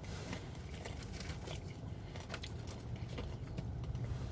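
Faint chewing of a french fry, with a few soft mouth clicks over a low steady hum.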